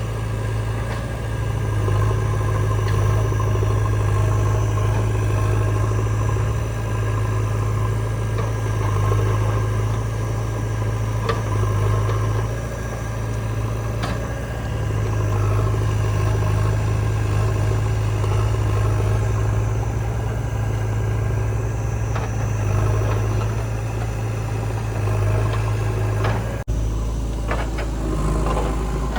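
Heavy diesel engine running steadily with a deep, even hum, with a sudden break near the end where the sound shifts.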